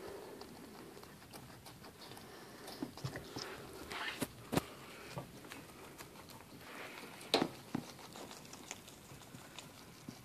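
Guinea pigs chewing lettuce: a soft, irregular crunching and clicking of small bites, with a few louder sharp clicks about four and seven seconds in.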